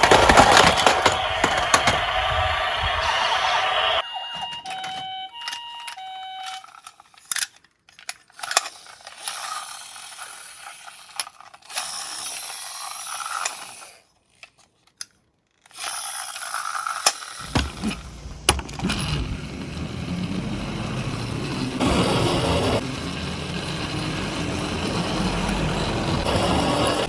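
A toy ambulance's electronic siren wails for the first few seconds, then a short run of electronic beeps steps between several pitches. After that come scattered clicks and clinks of small die-cast toy cars, with a brief pause, and from a little past halfway a steady rattling rumble of toy cars rolling down a slope.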